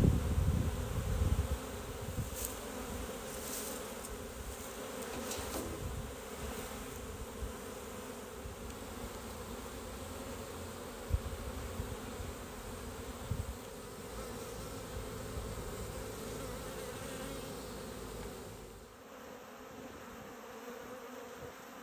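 Honeybees buzzing in a steady, continuous hum around an opened wooden hive. In the first second or two there are a few louder bumps as the hive frames are handled, and the hum becomes quieter near the end.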